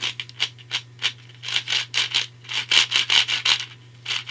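A new ShengShou 5x5 speed cube being turned in quick successive twists, each turn a short scratchy plastic scrape as the layers rub past each other. The cube is stiff and not yet broken in.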